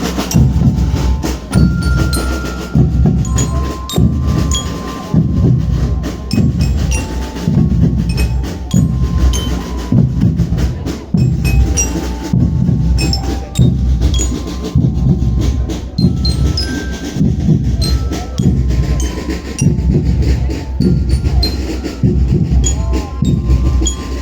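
Loud music with a heavy, steady bass beat at about one beat a second, and short high notes scattered over it.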